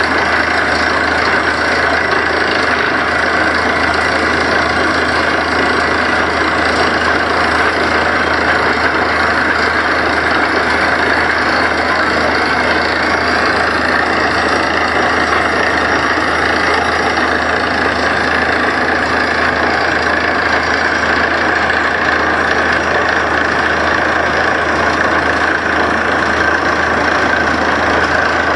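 Truck-mounted borewell drilling rig running while drilling, making a loud, steady noise of engine and compressor with a hiss of compressed air blowing rock dust up out of the borehole.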